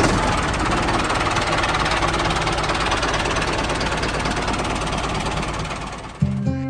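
Mini tractor's small engine running steadily with a fast, even beat. Music comes in near the end.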